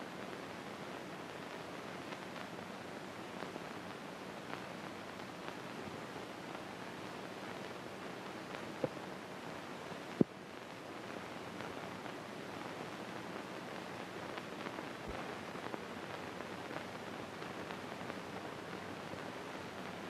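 Steady hiss and fine crackle of an early-1930s optical film soundtrack with no dialogue or music, broken by two sharp clicks about halfway through.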